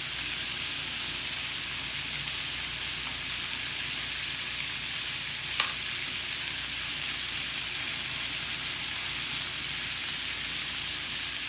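Steak searing in butter and fat in a hot skillet, sizzling steadily, with a single short click about halfway through.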